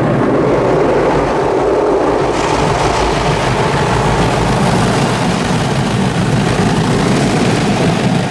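Water jets of an automatic gantry car wash spraying over the car, heard from inside the cabin: a loud, steady rushing roar that starts suddenly and turns hissier about two seconds in.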